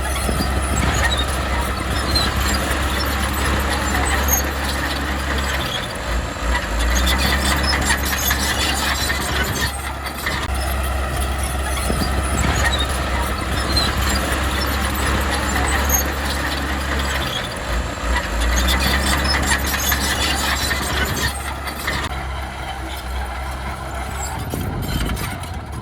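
Bulldozer's diesel engine running steadily, with high metallic squealing throughout.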